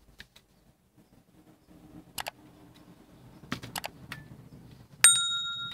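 Subscribe-button animation sound effect: a few sharp mouse clicks, then a bright bell ding near the end that rings on and fades over about a second and a half.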